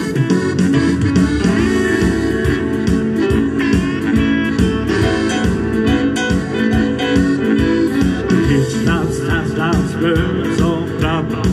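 Live band music played through PA speakers: a steady rhythmic beat with bass and keyboard chords under a guitar-like melody, and a wavering lead line with vibrato in the last few seconds.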